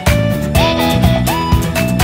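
Background music with a steady beat, a bass line and a sliding lead melody.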